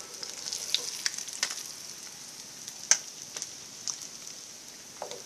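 Small vatta fish frying in hot coconut oil: a steady sizzle with scattered crackles and a sharp click about three seconds in.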